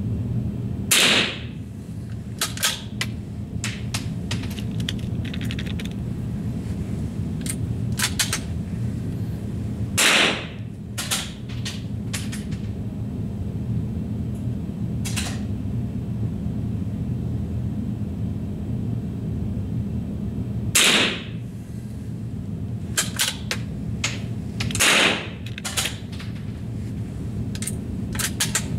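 Four rifle shots spread out, the last two about four seconds apart, with sharp clicks in between over a steady low hum.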